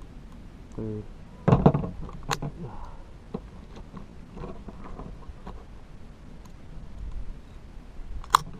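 Clicks and knocks of handling a scoped .22 rifle and turning the scope's adjustment turret with a screwdriver. A loud knock comes about a second and a half in, and a single sharp crack near the end.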